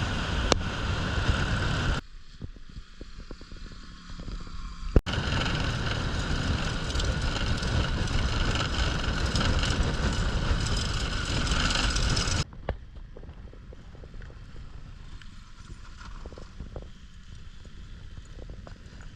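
Car driving, with steady road and wind noise. The noise cuts off abruptly a few times, switching between loud stretches and quieter ones with scattered clicks.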